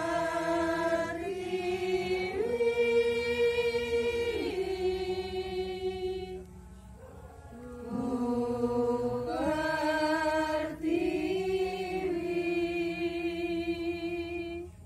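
Javanese kidung, a Hindu devotional song, sung slowly in long held notes that step from pitch to pitch, with a short pause about halfway through.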